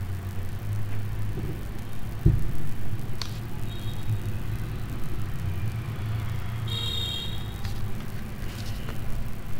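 A steady low rumble runs underneath, with a single sharp knock about two seconds in and a brief high beeping tone around seven seconds.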